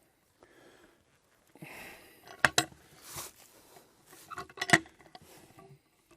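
Two bursts of sharp metallic clanks and knocks, about two seconds apart, as a log is worked onto the steel bed and stops of a portable sawmill.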